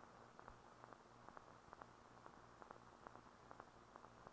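Near silence: the faint hiss and low hum of an old film soundtrack, with scattered faint clicks and crackles at irregular intervals.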